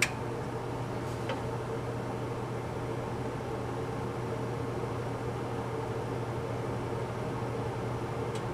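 Kitchen fan running steadily with a whirring hum, switched on to clear smoke from an overheated pan; a single click sounds right at the start.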